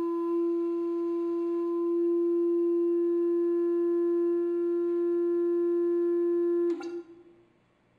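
Steady pitched hum of a sand-covered metal Chladni plate driven at one of its resonant frequencies, the sand standing in a fixed star-shaped pattern. Nearly seven seconds in, the tone cuts off with a short crackle, and near silence follows.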